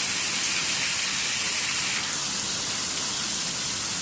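Heavy rain pouring down in a thunderstorm, a loud, steady hiss.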